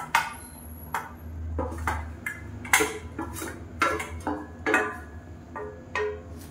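Wooden spatula scraping and knocking against a stainless steel pan and mixer-grinder jar as sautéed onions and chillies are pushed in: a run of sharp clinks and taps, some with a short metallic ring.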